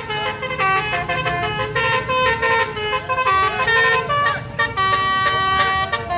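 Bus 'telolet' multi-tone horn playing a quick melody of short stepped notes, with a longer held chord near the end, over the low rumble of the bus engine.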